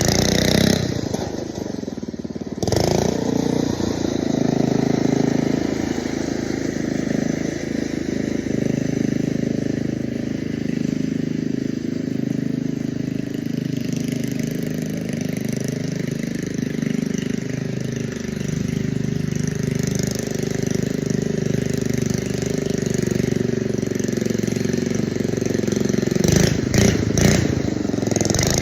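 Lawn mower engine running steadily, with a short drop in level about a second in and a few sharp knocks or clatters near the end.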